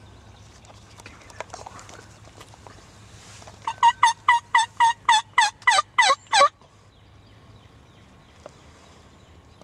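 A loud run of about a dozen turkey yelps, about four a second, starting nearly four seconds in and lasting about three seconds, the last few notes dropping lower in pitch.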